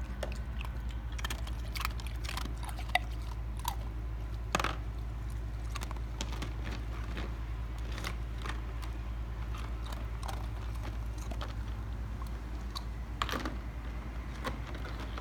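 Siberian huskies chewing ice cubes in a plastic pool: irregular sharp crunches and clicks, with a steady low hum underneath.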